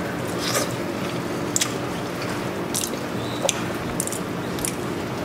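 A person chewing a mouthful of baked fish, with short soft mouth clicks and smacks scattered about once a second over a steady background hum.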